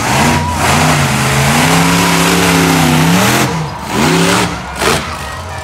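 Monster truck engine revving hard and holding high revs as the truck charges the dirt ramp. The revs drop sharply about three and a half seconds in as it jumps, then it revs up again briefly and gives one short blip.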